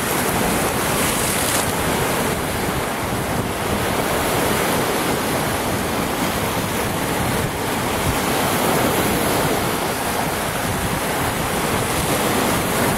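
Lake Superior waves washing and splashing against a rocky shore in a steady rush, with strong wind buffeting the microphone.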